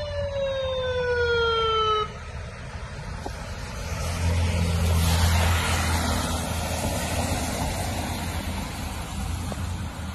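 An emergency vehicle's siren sliding down in pitch in a slow wail, then cut off about two seconds in. A heavy emergency vehicle then passes close on a wet road: a deep engine rumble and tyre hiss build around four seconds in, peak about five seconds in and ease off.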